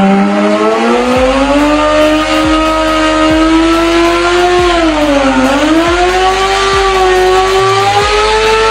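Sport motorcycle engine held at high revs during a burnout, its rear tyre spinning and smoking on the floor. The revs sag about halfway through, then climb back up.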